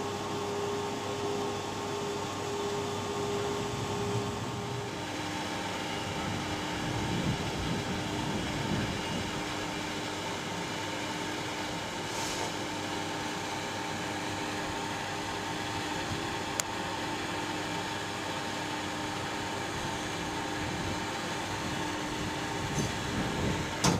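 VR Sr2 class electric locomotive standing with its equipment running: a steady fan-like whir with electrical humming tones. About five seconds in, one hum stops and a lower one takes over. A single sharp click comes about two-thirds of the way through.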